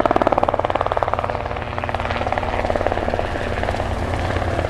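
Helicopter rotor blades chopping in a fast, steady beat, loudest in the first second.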